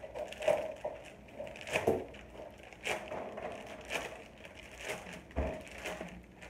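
Clear plastic packaging crinkling and rustling as it is pulled open by hand, in short irregular crackles about once a second.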